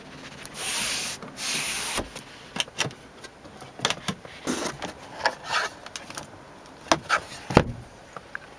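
Scattered clicks and light knocks of fingers on the car's interior switches and trim, with the overhead console switches pressed, after two short rustling hisses near the start.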